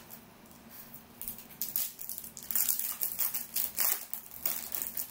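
Foil wrapper of a Topps Merlin Chrome trading-card pack crinkling in a run of irregular crackles as it is torn open by hand, starting about a second in.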